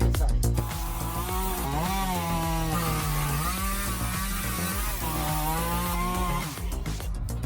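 Chainsaw engine running under load while cutting wood, its pitch sagging and picking up again several times. Background music drops out about half a second in and returns near the end.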